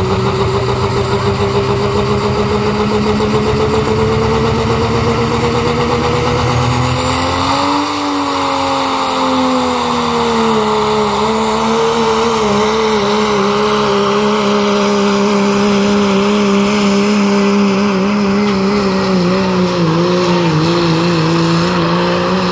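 3.0-litre diesel 4x4 pickup engine running hard under load while pulling a weight-transfer sled. Its pitch climbs steadily for about eight seconds, dips slightly, then holds high with a slight wavering.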